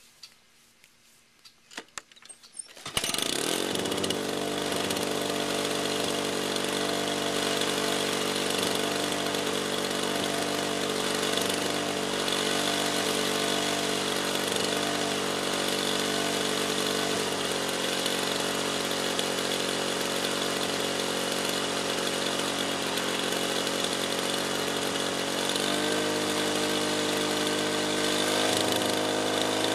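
Lawn-Boy DuraForce 6.5 HP two-stroke lawn mower engine on a warm start. After a few faint clicks it catches about three seconds in, revs up quickly and settles into a steady, buzzy run. Its pitch shifts slightly a couple of times later on.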